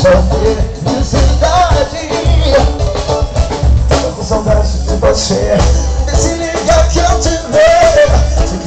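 Live band playing a Portuguese-language pop song loudly, with a steady bass beat, drums and a shaker.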